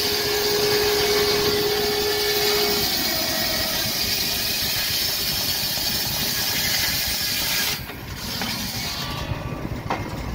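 Shingle mill's large circular saw cutting wooden shingles from a block: a loud, steady hissing saw noise with a steady whine in the first few seconds. The noise drops off abruptly about eight seconds in, followed by a few light clacks.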